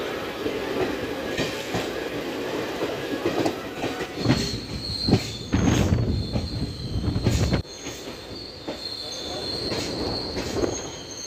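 Passenger train running on the rails: steady rolling noise with sharp wheel knocks over rail joints, and a thin high squeal from the wheels as it comes into a station. A louder heavy rumble runs from about four seconds in to about seven and a half seconds.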